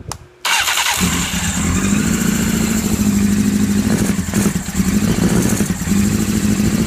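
1997 Honda CBR900RR inline-four engine starting about half a second in and then running steadily, its carburettors breathing through bare velocity stacks with no airbox.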